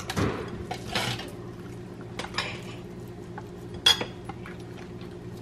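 Soft handling of cooked cabbage leaves being rolled on a plate, with light clinks of dishware and one sharp ringing clink a little under four seconds in, over a steady low hum.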